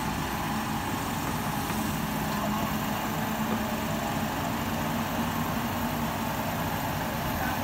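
Mobile crane's engine running steadily, a low, even drone.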